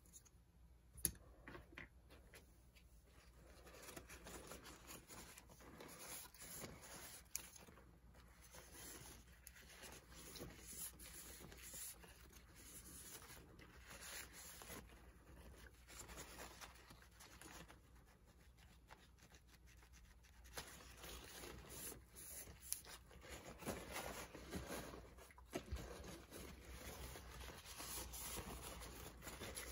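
Faint, irregular rubbing and scraping from hands working on the small parts of an Electra TC-505 reel-to-reel tape recorder under repair, with a single sharp click about a second in.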